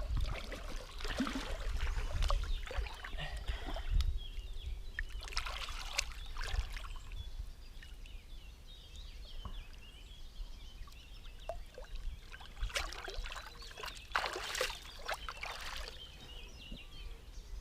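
Water splashing and sloshing in irregular bursts, louder in the first half, over a steady low rumble.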